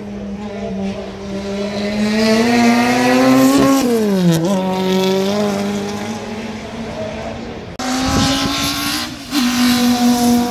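Race car engine running hard at high revs. The note climbs steadily for a few seconds, dips sharply and recovers a little past four seconds, then holds steady. It cuts off abruptly near eight seconds and resumes at a similar pitch.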